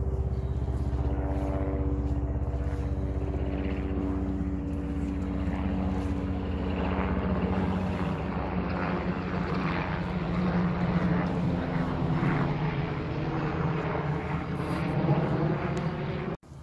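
Steady drone of a propeller aircraft's engine, its pitch slowly falling as it goes; it cuts off suddenly near the end.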